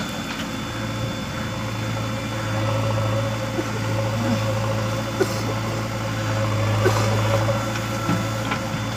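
JCB backhoe loader's diesel engine running steadily while the backhoe arm digs soil and lifts a loaded bucket, with a few faint knocks.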